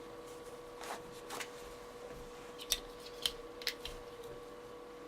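Handling noise of a multi-tool being taken from a belt at his side: faint rustling, then three short sharp clicks about a second apart.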